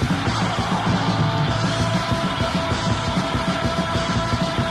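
Noisy hardcore punk from a lo-fi demo recording: a dense wall of distorted guitar over fast, pounding drums, with a few sustained ringing tones in the midrange.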